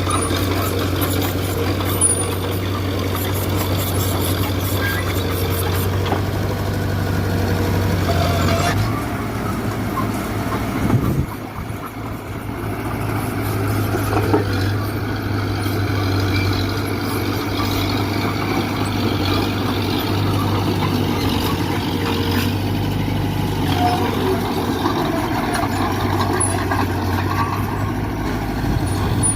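Heavy diesel earthmoving machinery running steadily, a bulldozer and dump truck at work; the low engine note changes about nine to twelve seconds in, with a brief dip in level.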